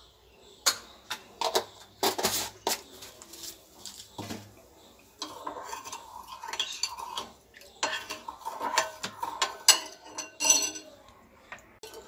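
A steel spoon clinking and scraping against a glass bowl as spiced tamarind water is stirred, with sharp clinks against the steel spice tin in the first few seconds and ringing clinks from about five seconds in.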